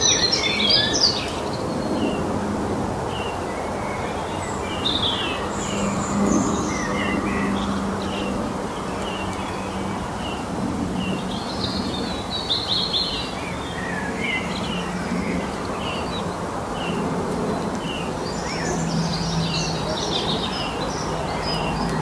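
Songbirds singing: a short chirp repeated about once a second, with bursts of faster, higher twittering near the start, in the middle and near the end, over a steady low hum and background noise.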